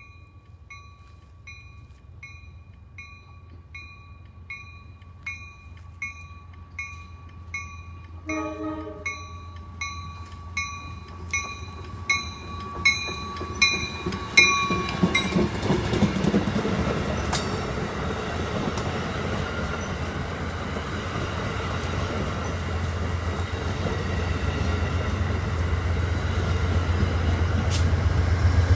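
Passenger train approaching and passing close by, cab car leading. A bell rings about once every three-quarters of a second, growing louder as the train nears, with a short horn blast about eight seconds in. The bell stops about halfway through and gives way to the rising rumble of wheels on rail and the diesel locomotive at the rear, loudest near the end.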